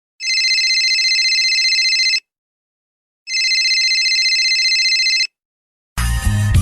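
Telephone ringing twice, each ring a rapidly trilling tone lasting about two seconds, with about a second of silence between them. Music cuts in near the end.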